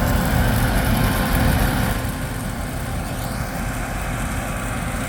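Steady running of a farm harvest machine's engine and drive, a little louder for the first two seconds and then even.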